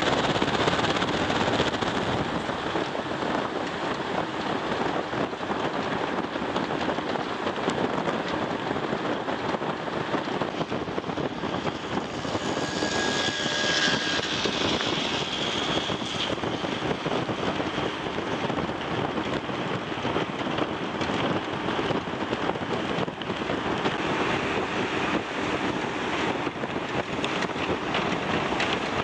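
Steady road noise of a moving vehicle: engine, tyres and rushing wind, heard from on board as it drives along. About halfway through a brief high-pitched tone sounds over it.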